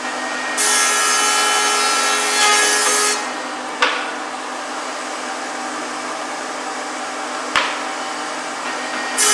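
Thickness planer running with a steady hum, with a board feeding through its cutterhead for a couple of seconds near the start, louder and rougher while it cuts. Two sharp knocks follow, about four seconds in and again near the end, and the next pass starts cutting just at the close.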